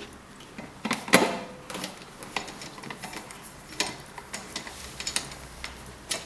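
Scattered light metallic clicks and taps as hands handle the wiring and metal fittings inside an electric water heater's flange compartment, with a louder knock about a second in.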